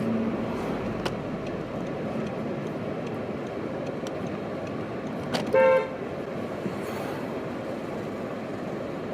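Steady street traffic noise, with one short car horn toot a little past halfway through.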